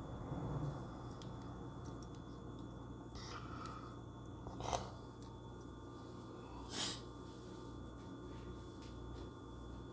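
A person sniffing twice, each sniff short and sharp, over a steady low hum with a few faint clicks of handling; the sniffles of someone with a cold.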